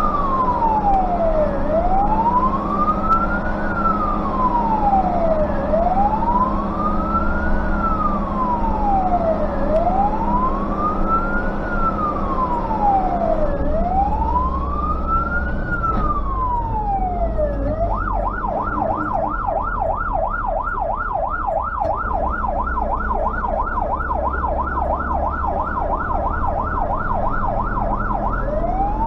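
Fire truck siren sounding in slow wailing rises and falls about every four seconds, switching about two-thirds of the way through to a fast yelp of several sweeps a second, then back to the wail near the end. Heard from inside the cab over the truck's engine rumble.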